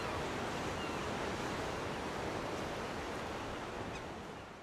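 Sea surf washing as an even, steady rush, with a couple of faint high chirps near the start; it fades out near the end.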